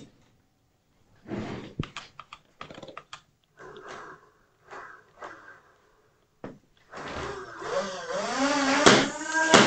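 A few short clicks and knocks from the motorised NERF blaster turret on the rover as it moves, then from about seven seconds a motor whir whose pitch rises and falls, getting louder toward the end.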